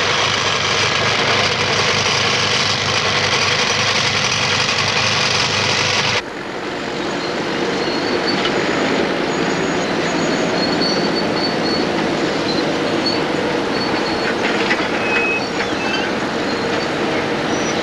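Dense, steady noise of tunnelling machinery that cuts off abruptly about six seconds in. A steady vehicle-engine rumble follows, with faint high squeals scattered through it.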